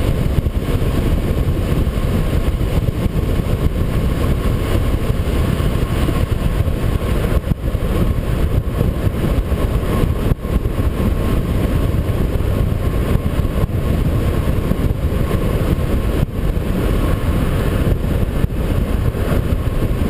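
Car driving at speed, heard through a bumper-mounted action camera: a steady, heavy low rumble of road and wind noise, dipping briefly a few times.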